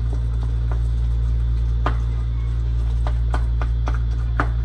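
A spoon stirring and breaking apart ground beef in a pot, with scattered clicks and scrapes of the spoon against the pot, over a steady low hum.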